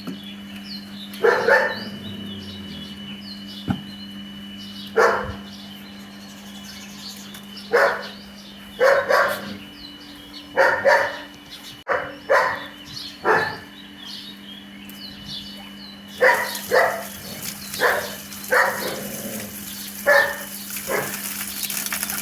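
German Shepherd dog barking: repeated single barks at irregular intervals, coming faster in the second half.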